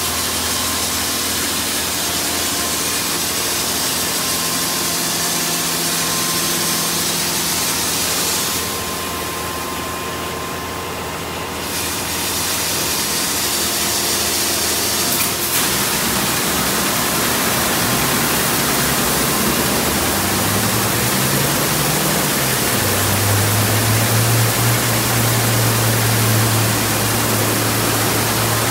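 Touch-free car wash gantry spraying high-pressure water over an SUV, a steady hiss over the hum of the pump motors. The spray cuts out for a few seconds partway through. Later a motor winds up with a rising hum and then runs steadily under the hiss.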